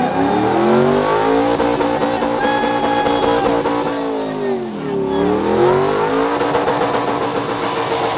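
Truck engine revved hard and held at high revs, sagging once about five seconds in and climbing straight back up.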